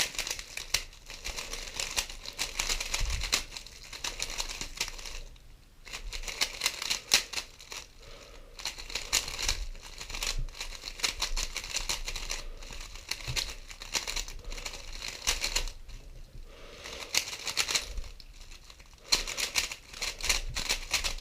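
GAN 11 M Pro magnetic 3x3 speedcube being turned quickly through algorithms: rapid plastic clicking and clacking of the layers, in fast runs broken by brief pauses about five seconds in and again near the end.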